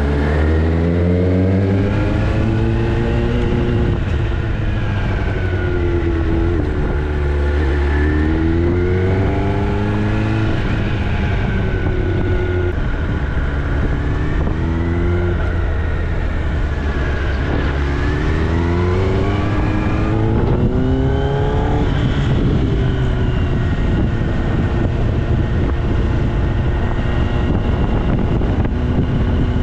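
Kawasaki ZX-10R's inline-four engine through an Austin Racing aftermarket exhaust, on the move: the engine note climbs and drops several times as the bike accelerates and backs off, then holds a steadier note in the last several seconds.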